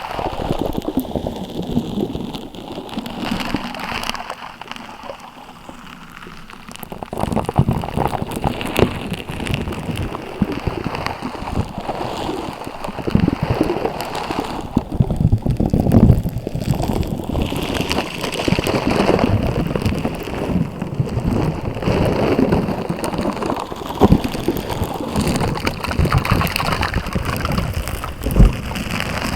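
Slime being squished and worked by hand, making a dense run of small crackles and wet pops. It is softer for the first several seconds and fuller from about seven seconds in.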